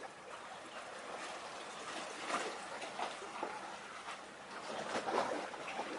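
Water lapping and trickling, with a few irregular louder splashes about two and five seconds in.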